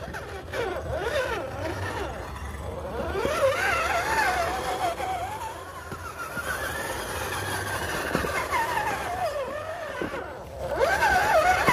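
Electric motor and gears of an RGT EX86100 V2 1/10-scale RC rock crawler whining as it drives over rocks, the pitch wavering up and down with the throttle. The sound drops away briefly near the end, then comes back louder.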